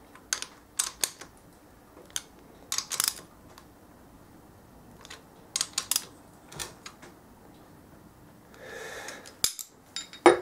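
Ratchet wrench clicking in short bursts of a few clicks at a time as the cylinder head nuts of a ZS155 pit bike engine are tightened an eighth of a turn each.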